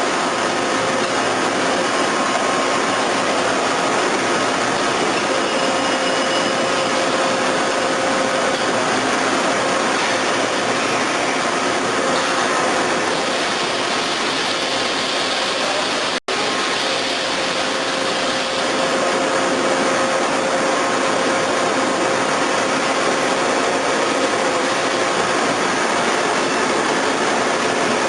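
A CNC double-column milling machine running, a steady mechanical noise with faint steady whining tones. It drops out for an instant about sixteen seconds in.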